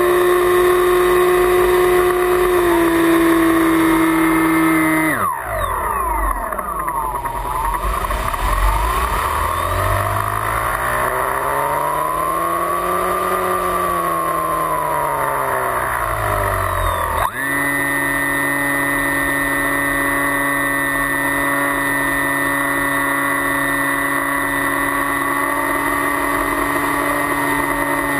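An FPV flying wing's motor and propeller, heard from on board: a steady, multi-tone whine at cruise throttle that drops sharply about five seconds in as the throttle is cut. While it glides, the propeller's pitch slides down, rises slowly and falls again, with wind rushing over the airframe. About seventeen seconds in, the throttle comes back up to the same steady whine.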